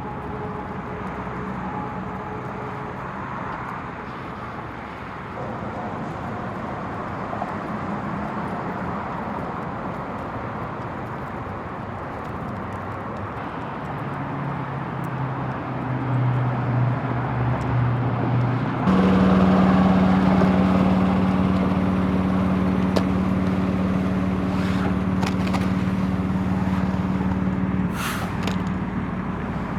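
Vehicle engines running amid steady traffic noise. About 19 seconds in, a louder, steady low engine hum abruptly takes over.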